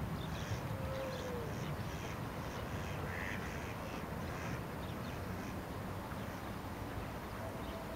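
Ducks quacking and other birds calling, over a steady low rumble.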